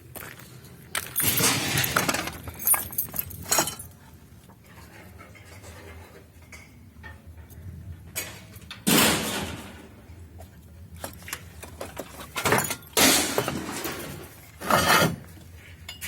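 Metal objects clattering and clinking in three bursts of rattling, separated by quieter pauses.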